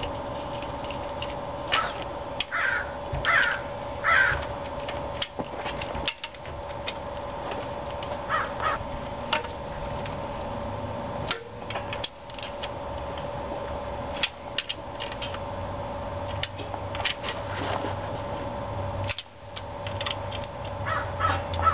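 Socket ratchet and wrench clicking and clinking as bell housing bolts are run up on a Chevy 350 small-block, over a steady background hum. A crow caws three times a few seconds in, the loudest sound.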